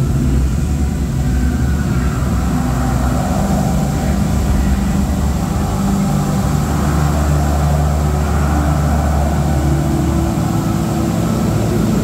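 Musical fountain display running: water jets rushing over a loud, steady low rumble, with held low tones that shift every few seconds.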